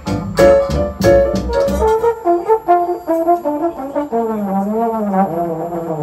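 A trombone ensemble plays live with rhythmic, punchy chords; about two seconds in the accompaniment drops away and a single trombone carries the melody, its notes stepping and then bending and wavering in pitch.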